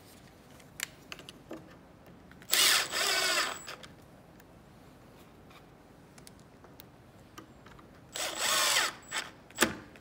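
Cordless drill/driver driving screws through a brass door strike plate into a wooden door jamb: two short bursts of motor whir, each about a second long, about 2.5 s in and about 8 s in, with the pitch shifting as the screw seats. A few small clicks fall between them.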